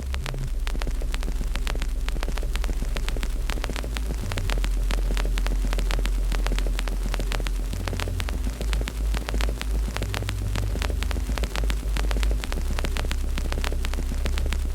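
Fireplace fire crackling, with many quick pops and snaps over a steady low rumble.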